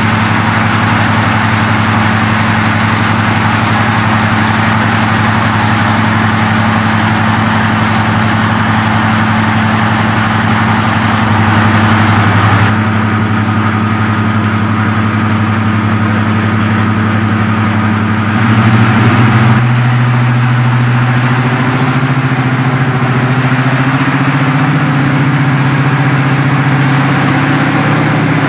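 Class 55 Deltic diesel locomotive standing with its twin Napier Deltic two-stroke engines idling: a loud, steady low drone. About 18 seconds in, the note steps up slightly and stays a little higher.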